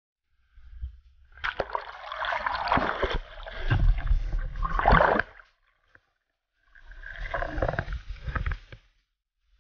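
Seawater splashing and rushing around a camera plunged under the surface beside a boat, with bubbling and a deep rumble, in two spells with a short silent gap between them.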